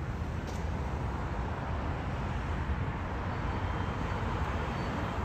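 Fire engine's diesel engine idling with a steady low rumble.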